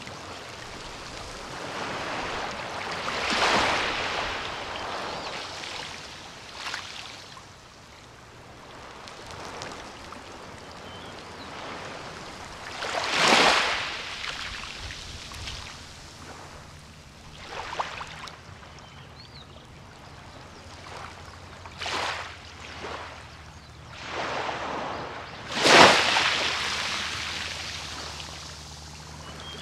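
Small sea waves breaking and washing up a beach, a steady hiss that swells into a surge every several seconds, the loudest surge near the end.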